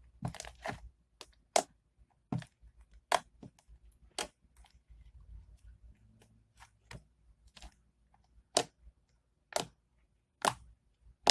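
Borax-activated clear-glue slime being squeezed and stretched by hand, making sharp clicks and pops, about a dozen spread irregularly, roughly one a second.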